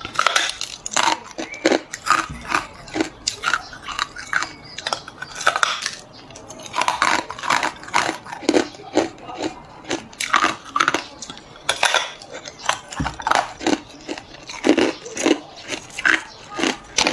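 Hard clear ice being bitten off a large block and chewed: a close, irregular run of sharp crunches and cracks.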